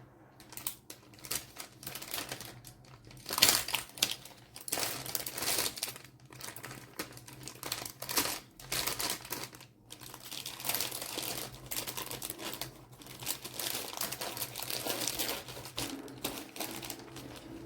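Packaging being handled: irregular crinkling and rustling with clicks and taps, on and off.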